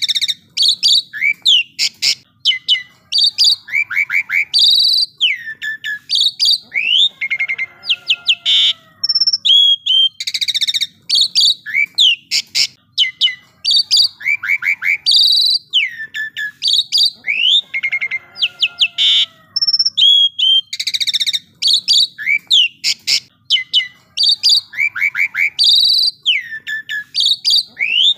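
Asian pied myna (pied starling) singing continuously and loudly. Its varied song runs through whistles, rising glides and rapid clicking rattles, and the same run of phrases comes round again about every ten seconds.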